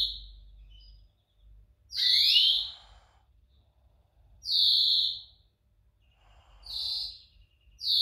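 European greenfinch giving its drawn-out, wheezy call over and over, about every two and a half seconds. Each call is a long high note, and some start with a quick upward slide.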